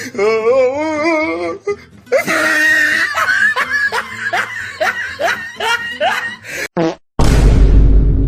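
Meme sound-effect laughter: a wobbly, high laughing voice, then a run of short laughs about two a second. Near the end it gives way to a sudden loud burst of noise about a second long that cuts off sharply.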